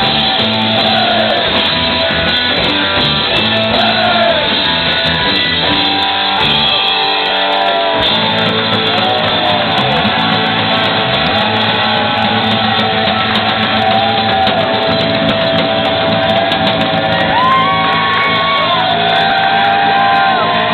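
Live garage rock band playing loud, with electric guitars, drums and cymbals, and shouted vocals over the top. The low end thins out briefly about seven seconds in, then the full band comes back in.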